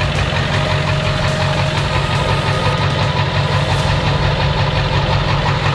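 Pickup truck engine idling steadily with a low, even rumble.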